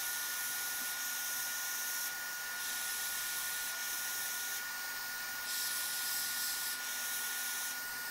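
Quick 861DW hot air rework station blowing through its nozzle: a steady hiss of air with a thin steady whine, as it heats a surface-mount power MOSFET to lift it off the circuit board.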